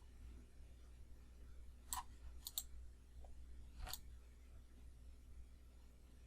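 Faint computer mouse clicks: one about two seconds in, a quick double click half a second later, and one more near four seconds, over a steady low hum.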